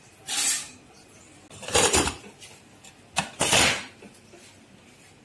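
Pressure cooker lid being fitted and closed: a few short clattering, scraping noises of metal on metal, the loudest about two seconds in, with a sharp click and another scrape near the end.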